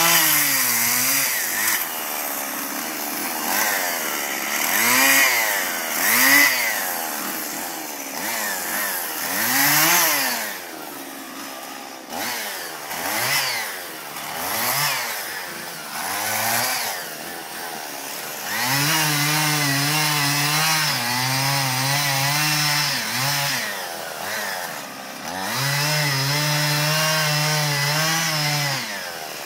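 Husqvarna 55 two-stroke chainsaw cutting branches and a log, its engine revving up and falling back again and again, then held at a steady speed through two longer cuts in the second half.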